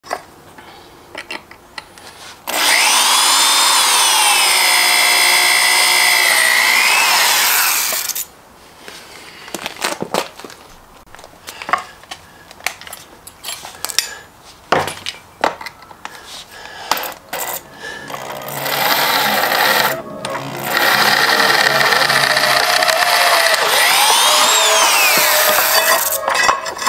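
Power drill boring through a steel plate laid on a wooden block, its motor whine dipping and rising in pitch as the bit bites. Two long runs of drilling, one starting about two seconds in and one in the last third, with scattered clicks and scrapes in the quieter stretch between.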